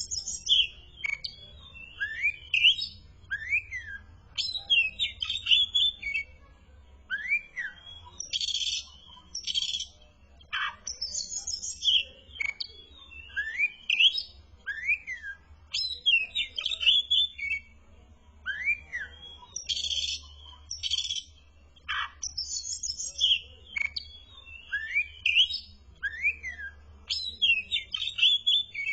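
Oriental magpie-robin (kacer) singing vigorously: a continuous run of short, varied whistled phrases full of quick rising-and-falling chirps, over a faint low hum.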